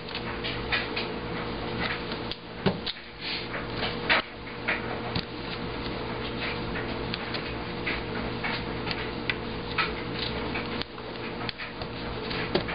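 Newspaper being pressed down and handled against an insect drawer's glass: scattered paper crinkles and small taps, a few louder ones a few seconds in, over a steady low hum.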